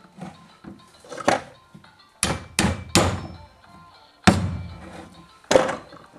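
A series of six sharp thunks and knocks, the loudest a little past the middle, from tools and chainsaw parts being handled and set down on a hard work surface during reassembly.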